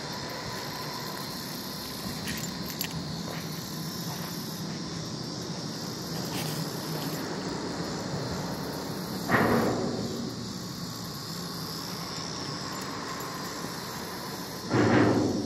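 A steady high insect chorus with a low drone of traffic on the bridge overhead; twice, about nine seconds in and again near the end, a vehicle crossing sets off a louder sudden rumble that fades over about a second.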